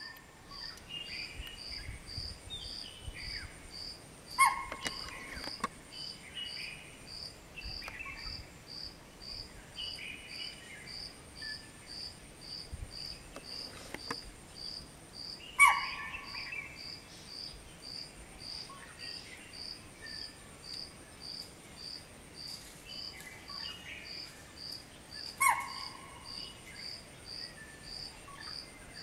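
Spotted deer (chital) giving a sharp, high alarm call three times, about ten seconds apart, a warning to the rest of its group that a watcher is near. Under it, a steady, evenly pulsing insect chirp and a few faint bird chirps.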